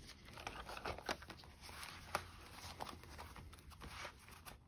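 Faint handling sounds of a spiral-bound planner insert being slid into its planner cover: soft rustles and light scattered taps.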